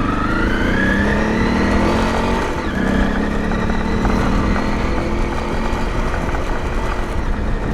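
Honda CRF250L Rally's single-cylinder engine running under way, rising in pitch over the first couple of seconds as the bike accelerates, then holding steady over a constant rush of wind noise.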